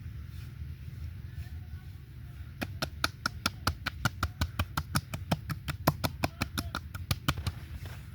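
Hands striking the body in a fast, even percussive massage (tapotement), about six slaps a second. It starts about two and a half seconds in, runs for about five seconds over a steady low hum, and stops near the end.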